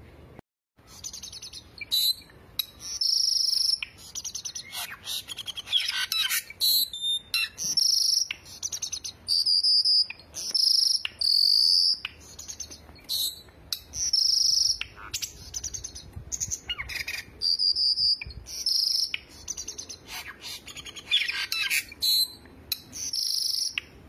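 Caged cucak songbirds (cucak jenggot, cucak cungkok and cucak keling) singing: a string of short, loud whistled phrases and trills, broken up by brief pauses, with a couple of harsher chattering runs.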